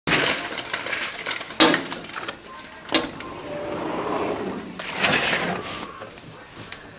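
Two sharp knocks, then a sliding glass door being slid open about five seconds in.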